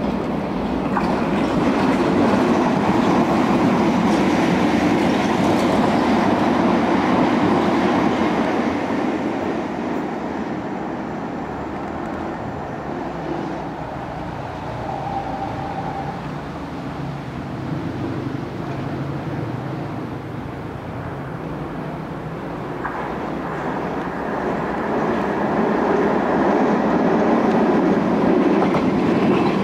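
London Underground Piccadilly line 1973 Stock trains running past at speed: a steady rumble of wheels on rail with rail-joint clatter. It is loud for the first several seconds, eases off in the middle, and swells again about two-thirds of the way in as another train comes through.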